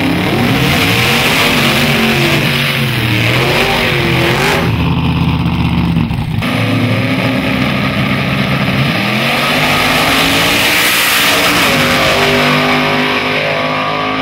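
Drag-racing engines, including a hot-rodded early-1950s Ford pickup's, revving up and down on the line. They then run at full throttle as the vehicles launch and accelerate down the track, the pitch climbing through the last few seconds.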